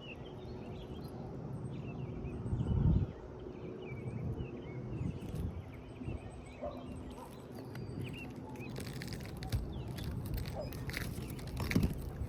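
Small birds chirping repeatedly in short, quick notes over a low, constant rumble, with a heavier low thud about two and a half seconds in and another near the end.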